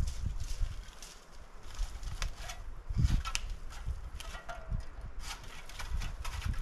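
Dry dead wood and brush being handled on the forest floor: scattered snaps and crackles of twigs with rustling, and a dull thump about three seconds in.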